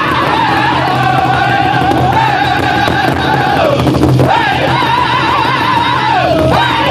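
Powwow drum group singing together in high, wavering voices while beating a large powwow drum.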